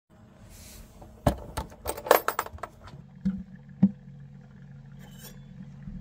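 Clicks, clinks and knocks of a 12-volt ICECO VL60 compressor fridge being opened and things inside being handled to reach a thermometer. There is a single click about a second in, a quick cluster around two seconds, and two sharp knocks near three and four seconds in. A low steady hum comes in at about three seconds.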